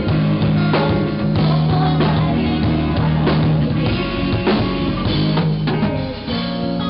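A live pop-rock band playing in rehearsal: a drum kit beat under strummed acoustic guitars and sustained low notes.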